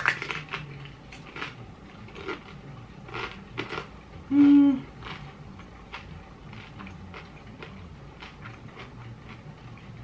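Close-miked eating: chewing and mouth noises with small sharp clicks, and a short hummed "mm" of enjoyment about four seconds in.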